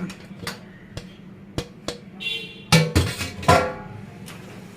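Short phrase of plucked-string background music, its notes loudest a little before and after the three-second mark. A few light clicks come earlier, in the first two seconds.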